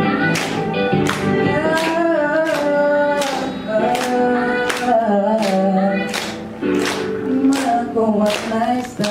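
A singer performing a slow Thai pop song into a microphone, with the audience clapping along in time, about two claps a second.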